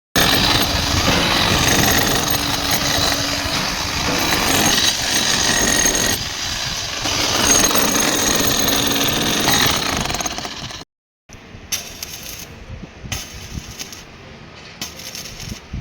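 Loud, harsh metalworking noise from cutting, grinding or welding steel, with a steady high whine through it, stopping abruptly about eleven seconds in. After that come quieter scattered clicks and knocks.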